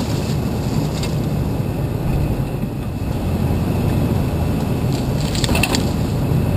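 A vehicle's engine running with a steady low rumble as it drives slowly along a dirt trail. About five seconds in, a short burst of crackling scrapes: brush rubbing along the vehicle.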